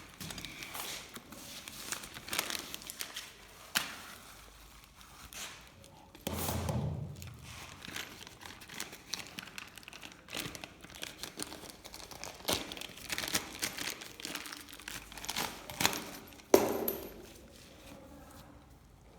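Handling noise from hands at work: irregular clicks, light knocks and crinkling, with a dull thud about six seconds in and a sharper knock near the end.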